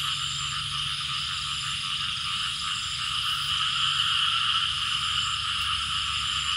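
Dense chorus of many frogs calling, a steady unbroken din with no single call standing out.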